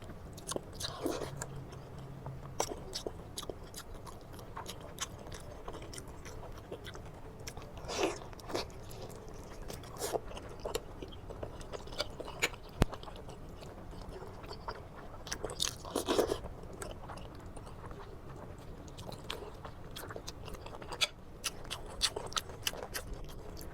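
A person biting and chewing a mouthful of braised pork trotter with vegetables and rice, with irregular wet clicks and smacks and a few louder bites.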